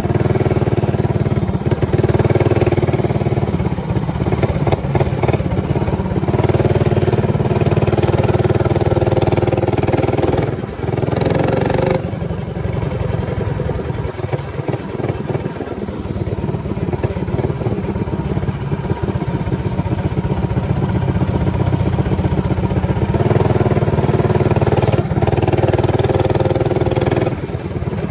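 Minibike's modified Predator 224cc single-cylinder four-stroke engine with a 265 cam, running hard under load. It eases off about ten seconds in and opens up again a little before the end.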